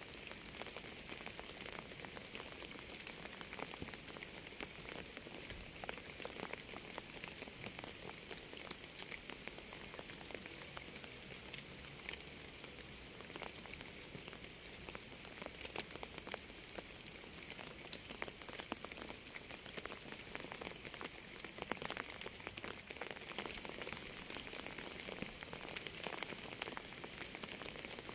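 Steady rainfall: an even hiss of rain with many separate drops ticking on a hard surface.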